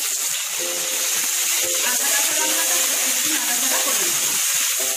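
Ginger and green chilli paste frying in hot mustard oil in a kadai: a loud, steady sizzle, with a few light knocks from a metal spatula stirring it. Faint background music plays underneath.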